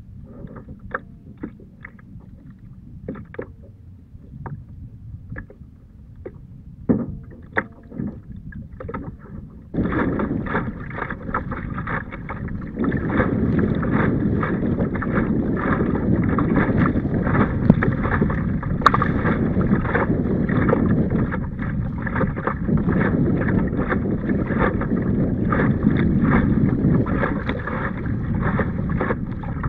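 Hobie Compass Duo pedal kayak under way at sea, with water rushing and splashing along the hull and wind on the microphone. The first third is quieter, with scattered clicks and knocks. About ten seconds in, the sound jumps abruptly to a loud, steady rush.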